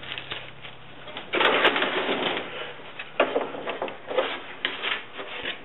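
A model boat hull being handled and shifted on a wooden workbench: a burst of scraping and rubbing about a second in, with two sharp clicks, then several shorter scrapes and knocks.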